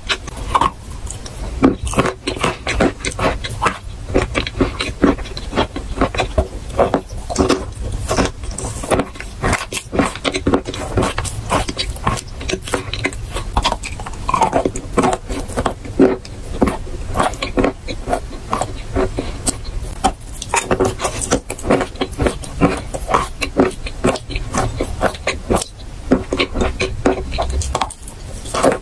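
Close-mic biting and chewing of a paste-coated stick of eating chalk: a dense, continuous run of crisp crunches.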